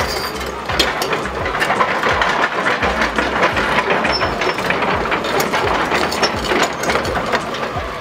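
Tracked excavator running: a steady low diesel engine rumble with dense, irregular metallic clanking and rattling.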